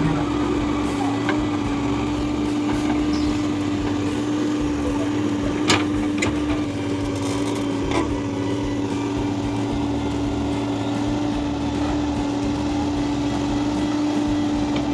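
A motor running steadily, with an even hum and an uneven low throb under it; a few sharp clicks come about six and eight seconds in.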